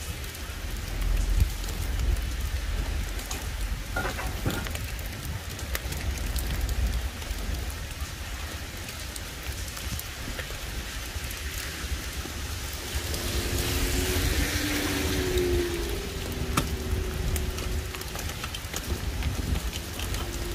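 Heavy typhoon rain falling steadily, with scattered clicks of drops and a low rumble of wind on the microphone.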